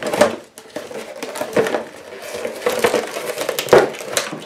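Red plastic megaphone being pulled out of a cardboard kit box: cardboard, paper and plastic packing scraping and crinkling in irregular bursts, the loudest near the end.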